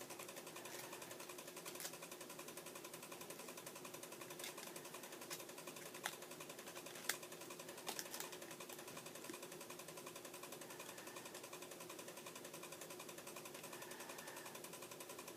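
Faint steady buzz with a fast, even pulse, and a few sharp clicks and taps of a cable and its plastic packaging being handled, the loudest about six to eight seconds in.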